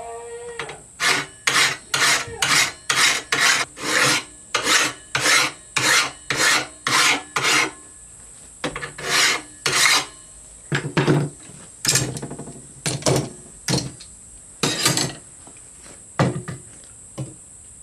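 Hand file rasping along the edge of a steel sword blade: about a dozen quick, even strokes, then after a short pause slower, more spaced strokes. The file is cutting down the high points to straighten a wavy blade edge.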